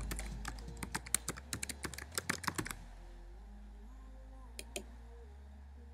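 Computer keyboard typing, a quick run of key clicks that stops about two and a half seconds in, followed a couple of seconds later by two more clicks close together.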